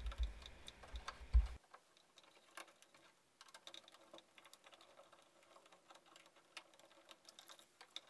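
Faint, scattered small clicks and ticks of a screwdriver and copper wires being worked at a wall outlet's terminal screws, with a low handling bump about a second and a half in.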